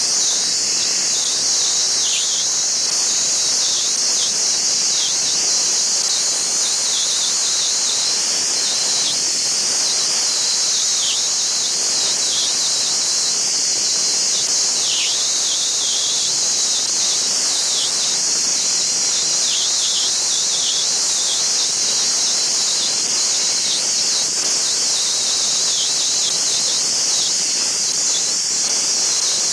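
Dustless (wet abrasive) blaster nozzle spraying a jet of water and abrasive onto a valve cover: a steady, high hiss that never breaks.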